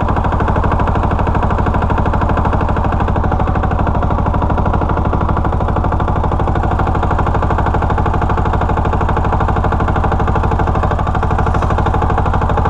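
Lombardini 15LD400 single-cylinder air-cooled diesel engine running steadily on the generator, a loud, fast, even chugging.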